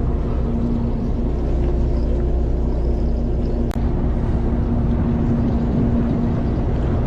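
Fishing boat's engine running steadily: a low rumble with an even hum, and one sharp click about halfway through.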